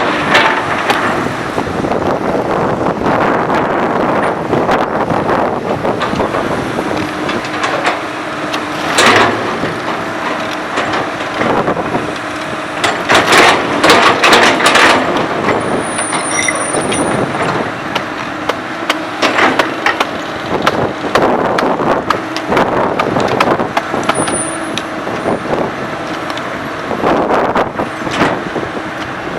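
Komatsu PC200 hydraulic excavator's diesel engine running steadily under work, with several loud knocks as the machine works, a cluster of them about halfway through and more near the end.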